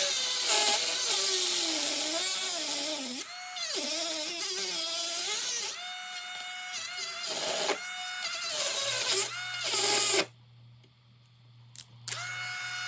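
Small high-speed power tool grinding into a laminated steel padlock, its motor whine sagging and rising in pitch as it bogs under load. It cuts out about ten seconds in and starts up again near the end.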